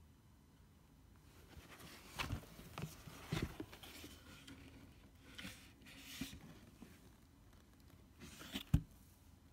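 Faint scratching, rustling and light knocks on a cardboard box as a kitten moves about inside it, in a handful of separate bursts, the sharpest knock near the end.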